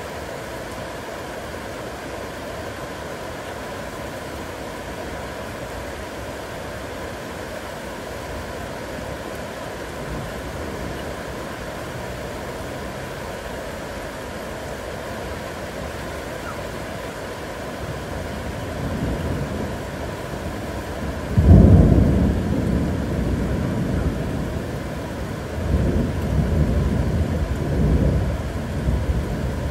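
Heavy rain falling steadily, with thunder: a low rumble builds about two-thirds of the way in, then a loud clap of thunder, followed by more rumbling near the end.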